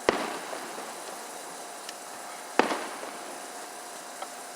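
Aerial fireworks shells bursting: two loud sharp bangs about two and a half seconds apart, each trailing off briefly, with a couple of fainter pops between them.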